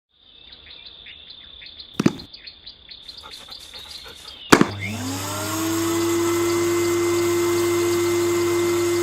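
Handheld vacuum cleaner handled with a few clicks, then switched on with a sharp click about halfway through; its motor spins up over about a second and then runs steadily.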